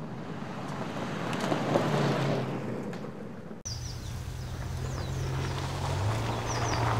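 Toyota Tacoma pickup truck driving on a gravel road, its engine and tyre noise swelling as it approaches. After an abrupt cut a little past halfway, another Tacoma's engine drones steadily as it climbs a dirt track, with a few short bird chirps over it.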